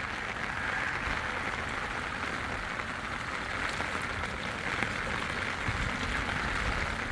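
Steady rain falling outdoors, an even hiss with a low, uneven rumble underneath.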